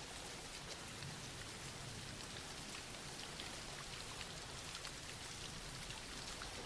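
Soft, steady rain falling, a light even patter of drops.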